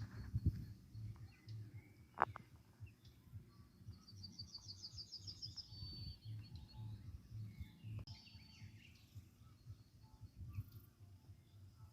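A songbird sings a quick trill of rapidly repeated high notes about four seconds in, then a shorter chirping phrase near eight seconds. Under it runs a low, regular thumping bass from distant music, with a single sharp click about two seconds in.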